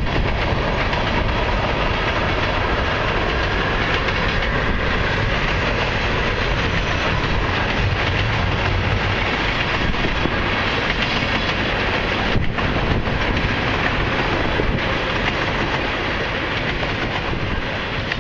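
Freight train of covered hoppers and tank cars rolling past: a steady rumble of steel wheels on rail with clickety-clack at the rail joints, easing slightly near the end.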